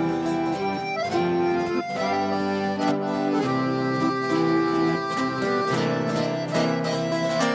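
Instrumental break of a sertanejo song: an accordion plays a melody of held notes over a strummed guitar accompaniment.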